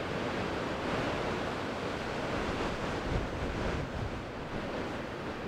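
Heavy ocean surf, waves about ten feet tall breaking and churning over shoreline rocks in a steady rush.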